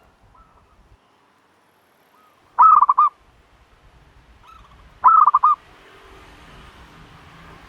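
Turtle dove calling: two short calls, each a quick run of four or five notes, about two and a half seconds apart, with fainter single notes between them.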